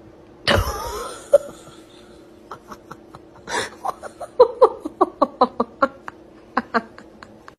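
A person laughing hard in a long run of short bursts, after a sudden loud noise about half a second in.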